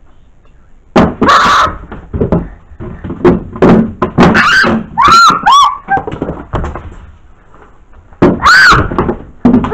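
A child screaming and shrieking in panic, mixed with thumps and bangs, starting about a second in; the highest shrieks come about five seconds in and again near the end.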